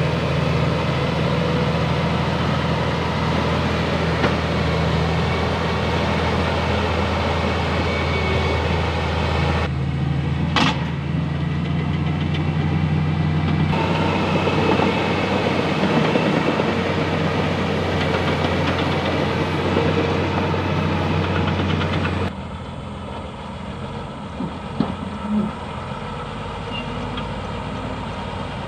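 Bulldozer's diesel engine running steadily, with a sharp click about ten seconds in; about two-thirds of the way through it drops suddenly to a quieter, thinner drone.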